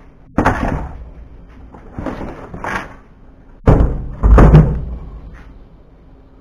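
A black plastic battery box is set down and shifted into place on its metal mounting plate in a truck bed. It makes a series of heavy thumps and clunks, and the loudest pair comes about four seconds in.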